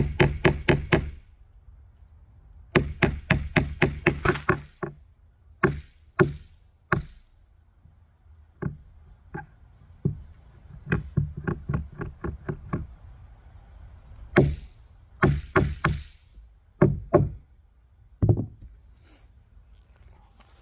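Claw hammer striking in quick runs of blows, about five a second, with single blows spaced out between the runs.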